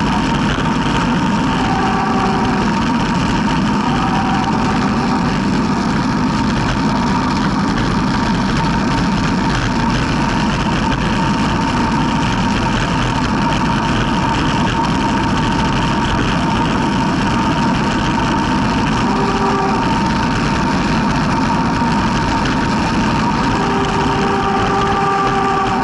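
Steady rush of wind buffeting a bike-mounted camera on a fast road-bike descent, mixed with tyre noise on asphalt, with a thin steady whistle underneath.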